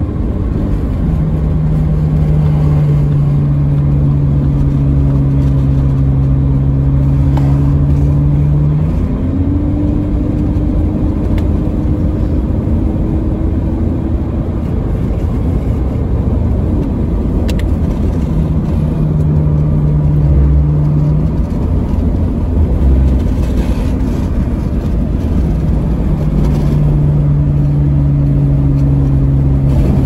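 Car driving, heard from inside: a steady engine hum over low road and tyre rumble. The engine note steps up about a third of the way in, drops away for a few seconds past the middle, and comes back.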